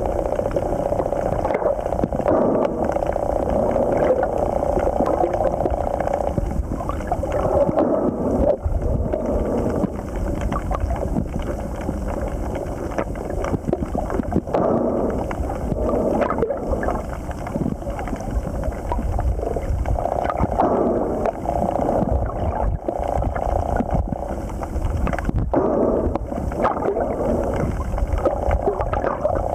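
Muffled underwater noise heard through a camera's waterproof housing: a steady rushing that swells every several seconds, with scattered clicks throughout.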